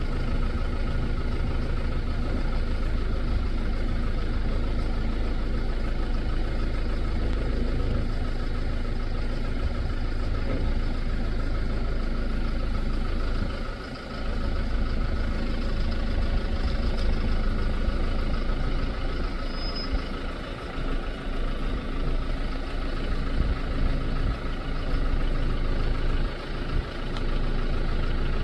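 Vehicle engine idling steadily, with a continuous low rumble.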